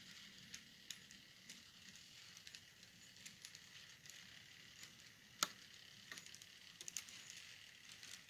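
Model railroad freight cars rolling along the track: a faint steady hiss with scattered light clicks of wheels crossing rail joints and switches, and one sharper click about five and a half seconds in.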